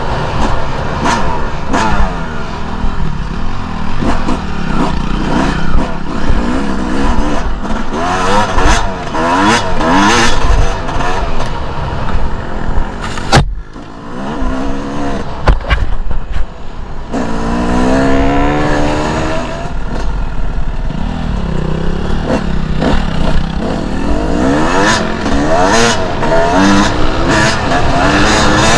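Two-stroke enduro dirt bike engine revving up and down as it is ridden off-road, with a few knocks. About halfway through the throttle closes briefly and the engine drops away, then climbs in pitch again.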